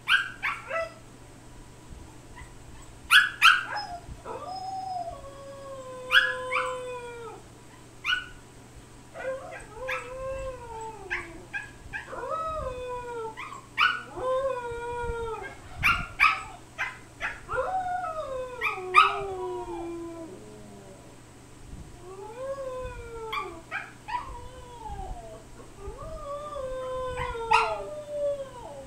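Husky howling in a run of drawn-out calls that slide down in pitch, again and again, with a few short sharp yips among them. It is a protest howl at being kept shut in the pen.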